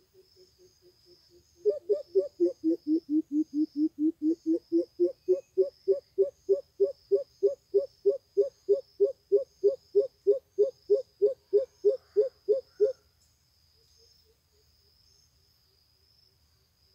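Greater coucal calling: a long run of deep, evenly spaced hoots, about three a second, led in by a few soft ones. The pitch dips a little lower early on, then rises and holds steady before the calling stops after about eleven seconds.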